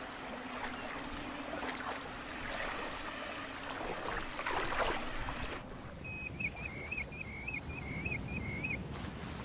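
Water splashing and sloshing, as from a small boat being moved through the water, for a little over half the time. Then, after a sudden change to a quieter background, a bird calls a quick series of about eight short, hooked notes.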